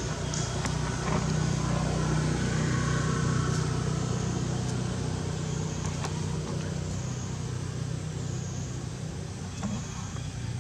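A motor engine running steadily in the background: a low hum, a little louder about two seconds in and easing off near the end.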